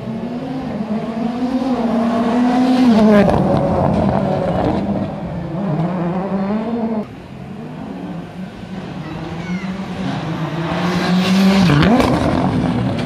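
Rally car engines revving hard, the pitch climbing and dropping again and again. The sound drops off suddenly about seven seconds in, then builds as a car passes close near the end.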